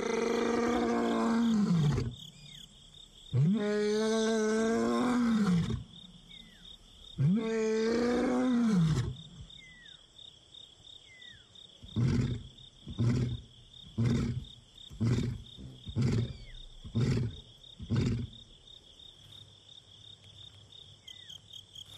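Male lion roaring: three long moaning roars that rise and then fall in pitch, followed by a run of about eight short grunts. It is a contact call that goes unanswered.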